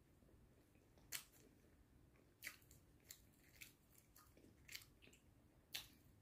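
Faint mouth clicks and smacks from chewing a mouthful of soft white sliced bread, about six short sounds spread a second or so apart over near silence.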